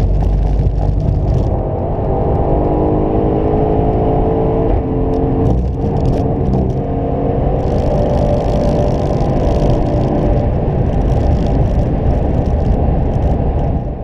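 2018 Aston Martin Vantage's twin-turbo V8 accelerating hard, heard from inside the cabin. The engine note climbs steadily, drops briefly at a shift from fourth to fifth gear about five seconds in, then climbs again.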